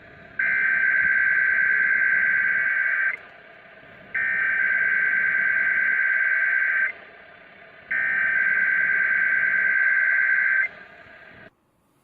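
Emergency Alert System SAME header: three identical bursts of warbling digital data tones, each nearly three seconds long with about a second between, over faint radio hiss. They are the coded header that opens a Flash Flood Warning broadcast.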